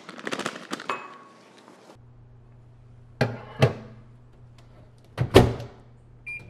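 Kitchen clatter, then knocks as a ceramic bowl of butter is set in a microwave and the door is shut, loudest about five seconds in, over a low steady hum. The microwave keypad gives one short beep near the end.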